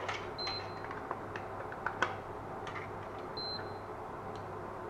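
Light clicks and taps of a spoon scooping sour cream from its tub into a pan of fried onions and mushrooms. Two short high beeps sound about three seconds apart.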